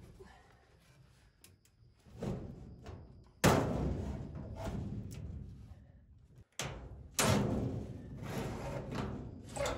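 Heat-exchanger coil being shoved into a galvanized sheet-metal furnace plenum: a series of heavy thumps and bangs, the sheet metal booming after each one. The loudest bang comes about three and a half seconds in, with two more just under seven seconds in.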